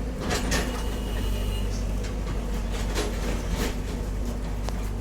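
Short scraping knocks from hands working on cables and fittings, about four in all, over a steady low hum.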